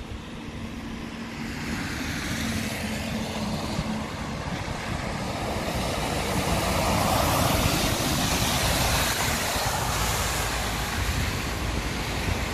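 Heavy truck pulling a trailer driving past on a wet road: engine and tyre noise grow louder as it approaches, are loudest as it passes about two-thirds of the way through, then ease off.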